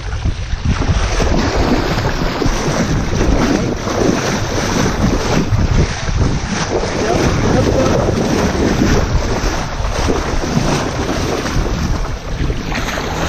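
Wind buffeting the microphone over water rushing and splashing against a boat's hull, where a sailfish is held alongside in the whitewater.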